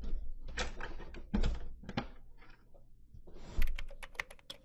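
Typing sound effect: a few heavier key knocks in the first two and a half seconds, then a fast run of sharp key clicks starting about three and a half seconds in, as if letters were being typed out.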